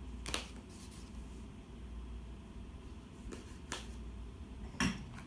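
Seals on the sides of a cardboard phone box being cut and the box handled: about five short scratchy clicks and rustles over a low steady hum.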